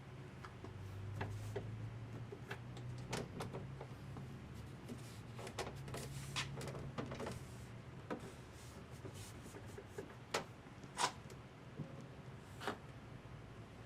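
Scattered clicks and knocks of hand work on parts, the sharpest few in the second half, over a steady low hum.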